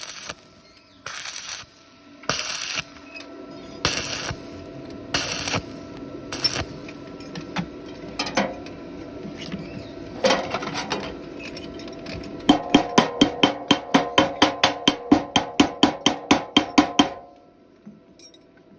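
Stick-welding arc crackling in short bursts, about one a second, as the rod is struck and broken off in stitch welds on thin square pipe. About three-quarters of the way through comes fast metal-on-metal tapping, about seven ringing strikes a second, for some four seconds.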